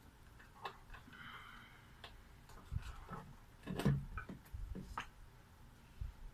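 Scattered light clicks and knocks of a soldering iron and small parts being handled at a workbench. The loudest is a knock with a dull thud near the middle.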